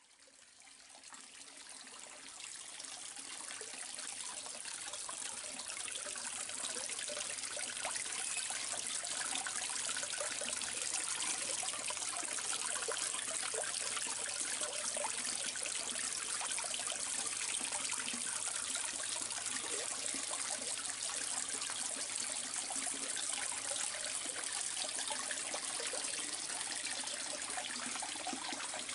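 Water steadily trickling and splashing into a koi pond from its fountain or return, fading in over the first few seconds.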